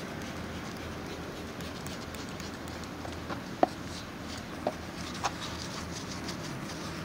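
A brush scrubbing soapy foam around a motorcycle tyre's bead on the rim, light scratchy strokes with a few short sharp clicks a little past the middle, the first the loudest, over a steady background hum.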